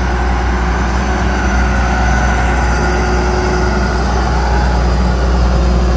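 Diesel engine of a JCB JS 205 tracked excavator running steadily at working speed while the upper structure swings round and the boom lifts under hydraulic power.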